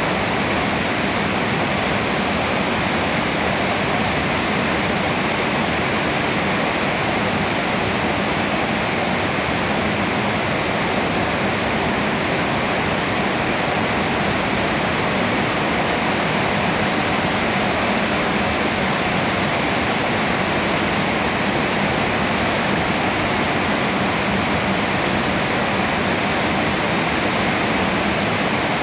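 Steady rain falling on leafy trees, an even, unbroken hiss that neither swells nor fades.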